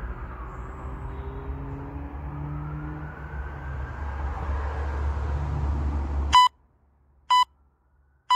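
Low rumble of passing road traffic with a vehicle's pitch gliding, which cuts off abruptly about six seconds in. Then an electronic interval timer gives three short beeps about a second apart, counting down the end of the timed stretch hold.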